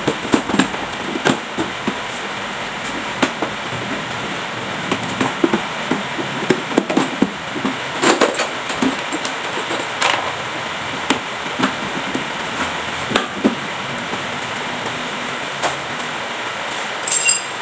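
Irregular knocks, clicks and clatter of a hard plastic under-seat storage bucket on a Honda BeAT scooter being handled and fitted back into the frame, over a steady background noise.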